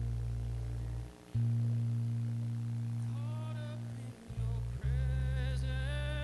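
Worship band playing softly: long held low notes that change a couple of times, with a voice singing a short phrase about three seconds in and a longer one near the end.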